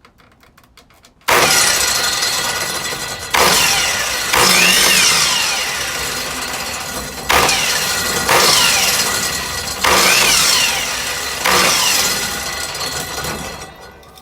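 Electric miter saw run in about seven short bursts of quick spins, each starting suddenly and winding down before the next, as it trims the last bit off a piece of wood.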